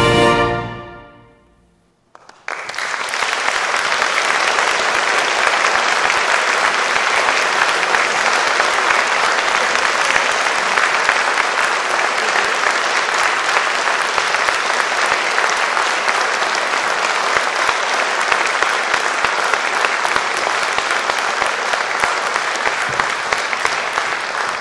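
An orchestra's final chord fades away, and after a moment's silence audience applause breaks out about two seconds in and carries on steadily.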